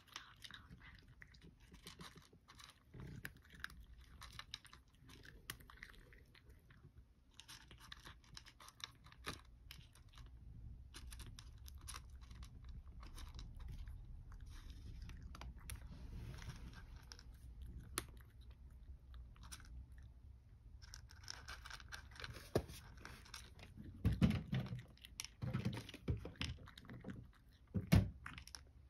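A cat chewing and crunching dry kibble, a run of small crisp crunches, with a few louder knocks near the end.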